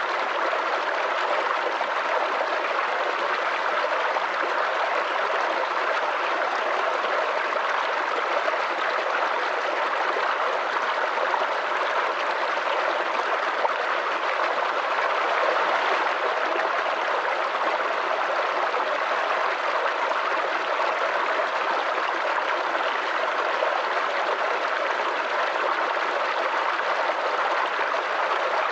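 Small forest creek babbling and trickling over stones, a steady gurgling rush of water.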